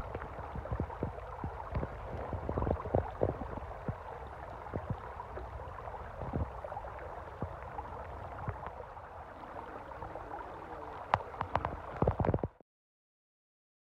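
Small creek gurgling and babbling over rocks in a shallow, steady flow, with many small irregular splashes and clicks. The sound cuts off abruptly to silence near the end.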